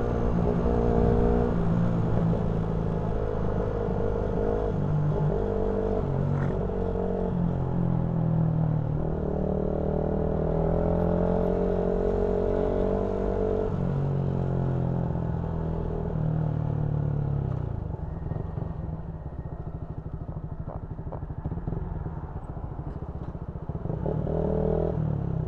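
Motorcycle engine heard from the rider's seat, its revs rising and falling through the gears, then dropping to a low, pulsing tick-over about two-thirds of the way in.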